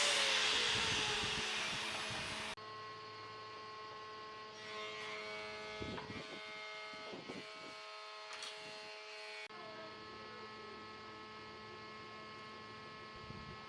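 A power tool that has been cutting wood winds down after being switched off, its pitch falling and its noise fading over the first couple of seconds. It then gives way to a faint steady hum with a few light knocks and scrapes of handling.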